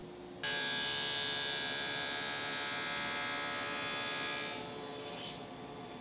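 Table saw motor running with a steady, high whine that starts abruptly. About four and a half seconds in the high part of the whine drops away, leaving a quieter, lower hum as the saw winds down.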